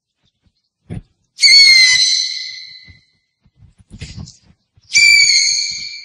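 An owl calling twice, about three and a half seconds apart. Each call is a loud, high, whistled screech that dips slightly in pitch at its onset, then holds and fades out over about a second and a half. A soft low thump comes shortly before each call.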